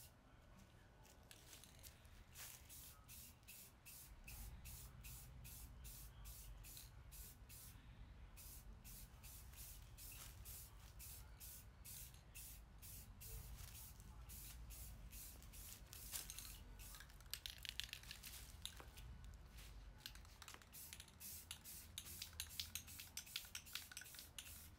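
Faint aerosol spray can of clear coat hissing in short, rapid pulses as it is sprayed onto a painted bike frame, with wind rumbling on the microphone through the middle.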